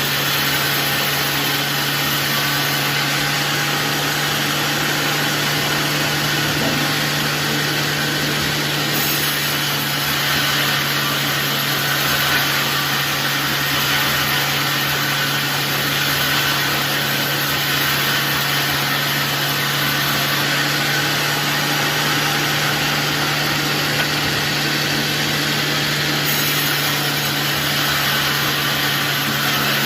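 Sawmill saw running steadily, a constant low hum under a broad hiss with no breaks.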